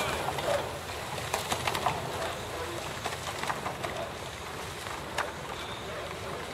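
Outdoor ambience: a steady noise bed with scattered faint clicks.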